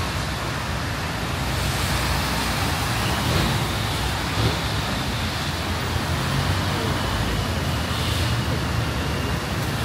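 Steady wash of heavy rain mixed with road traffic noise, even and unbroken throughout.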